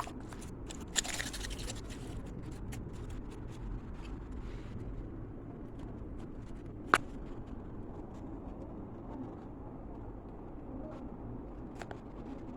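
Crystal mud slime being squished and poked by hand, giving many small clicking pops and a scratchy rustle early on, with one louder pop about seven seconds in, over a steady low background hum.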